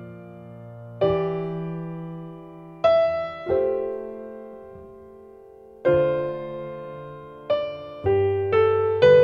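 Background music: slow, gentle piano chords, each struck and left to fade, coming closer together near the end.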